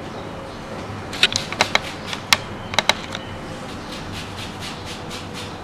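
Lemon zest being grated on a handheld metal grater: a run of short scraping strokes, with several sharp clicks in the first few seconds and fainter strokes after.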